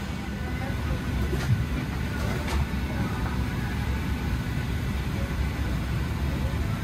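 Steady low rumble of a Boeing 737-700's cabin while it is parked before taxi, with a couple of faint knocks about one and a half and two and a half seconds in.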